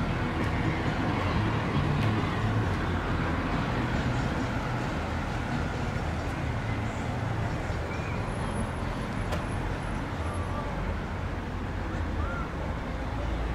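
Steady low rumble of road traffic or a running vehicle, with faint voices in the background.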